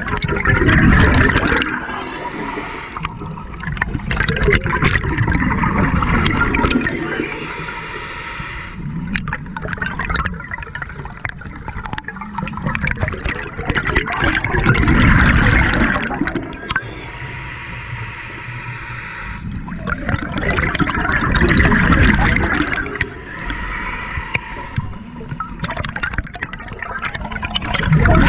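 Scuba diver breathing through a regulator underwater: exhaled bubbles gurgle up in loud surges every six or seven seconds, with a fainter hiss of inhalation between them.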